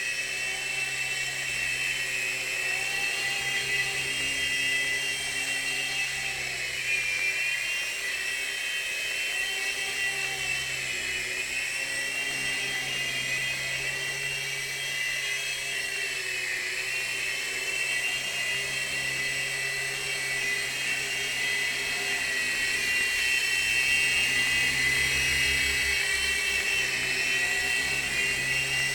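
DFD F103 mini RC helicopter, flown without its side turbines as a three-channel F101B, in flight: its small electric motors give a steady high whine whose pitch wavers slightly with the throttle, over a low rotor hum. It gets a little louder near the end.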